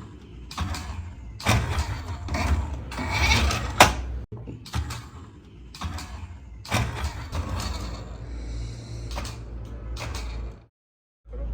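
Hands handling toy parts and packaging: irregular scrapes, rustles and sharp clicks over a low hum, broken by abrupt cuts, with a short silent gap near the end.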